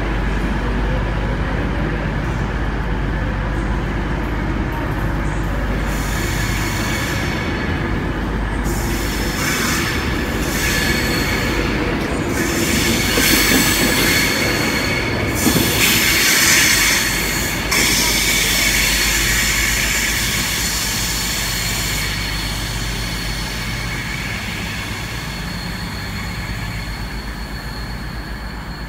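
Class 390 Pendolino electric train pulling away with a steady low rumble from its motors and wheels. From about six seconds in, high wheel squeal builds, is loudest around the middle, then fades as the train draws away.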